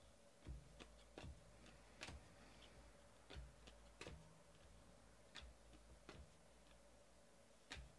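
Faint, irregular clicks and taps of trading cards being handled and flipped, about ten in all, over near silence.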